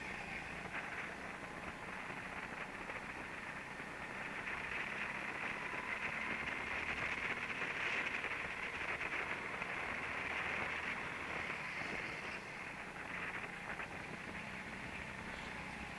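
Go-kart driven at speed, heard from an onboard camera: a steady rushing noise with a faint whine that rises and falls with speed. It grows louder through the middle, as the kart runs down a straight.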